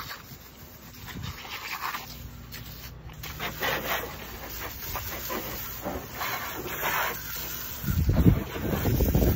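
Water from a garden hose spray nozzle spraying in spurts against a car's wheel and the wet pavement. Near the end a low rumble of wind on the microphone comes in and is the loudest part.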